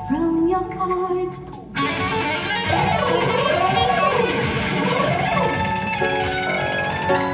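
Live electric guitar lead over grand piano accompaniment, the guitar bending notes up and down in a wavering line. The music fills out suddenly about two seconds in.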